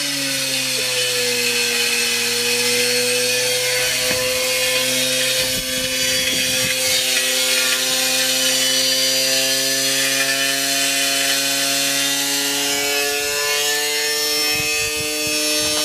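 Washing machine spinning with a brick inside: a steady motor drone with harsh grinding and scraping over it as the machine tears itself apart.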